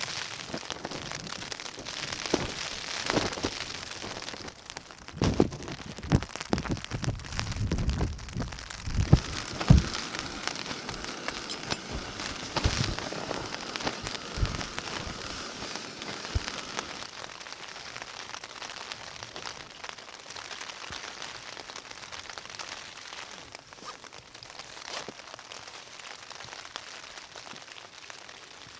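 Rain pattering on a tent, with a run of knocks and bumps through roughly the first half, after which the rain goes on steadily and a little quieter.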